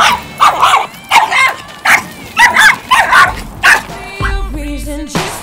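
A small dog yapping in a rapid string of sharp, high barks, two or three a second. About four seconds in, the barking stops and pop music comes in.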